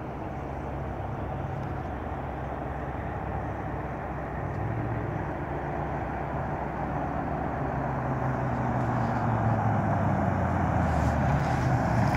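2005 Nissan Titan's 5.6-litre V8 breathing through JBA headers and exhaust, a steady low exhaust rumble as the truck drives closer, growing louder toward the end.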